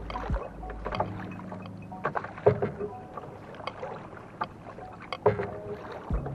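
Canoe paddle working the water, with irregular splashes, drips and sharp knocks of the paddle against the canoe.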